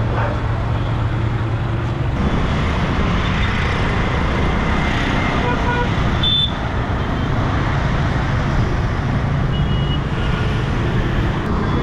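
Busy city road traffic heard from an open cycle rickshaw: a steady mix of engine and tyre noise from passing auto-rickshaws and scooters. A short vehicle horn toot sounds about six seconds in, and fainter toots follow near the end.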